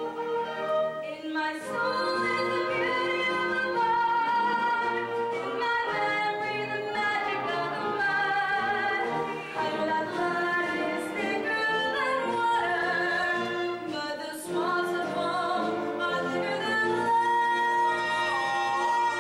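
A woman singing a musical-theatre song over instrumental accompaniment, ending on a long held note.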